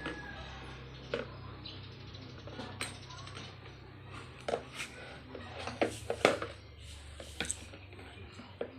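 Scattered sharp clicks and knocks of hand tools and parts being handled while repairing a kids' ride-on motorcycle, about nine in all and loudest past the middle, over a low steady hum.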